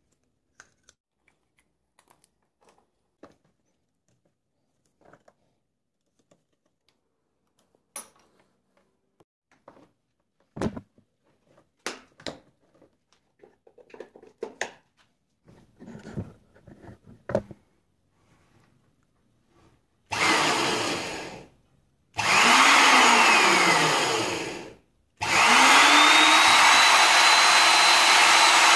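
Light clicks and knocks of small parts being handled, then an old corded electric drill switched on three times about twenty seconds in. Two short runs each spin up and wind down, and the third keeps running steadily with a high whine.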